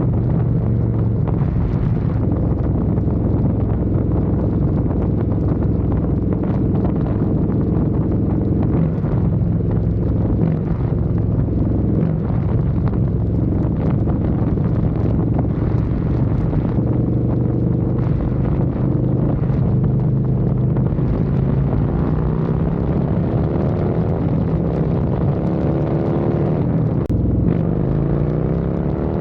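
Harley-Davidson Road Glide V-twin with a Screaming Eagle Stage 2 511 cam, running through a Thumper Moto 2-into-1 stainless exhaust. Steady at first, then its pitch climbs over the last several seconds, breaks briefly near the end, and climbs again.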